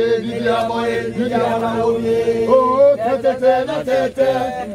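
A group of voices chanting a song together in unison, holding long notes that shift pitch now and then.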